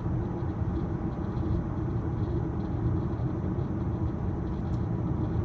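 Steady road and tyre rumble heard inside the cabin of a 2023 Tesla Model Y, an electric car driving along.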